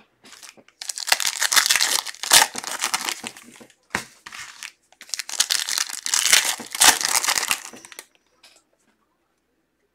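Foil wrapper of a basketball trading-card pack crinkling and tearing as it is opened by hand, in two bouts of loud crackling, the second ending about eight seconds in.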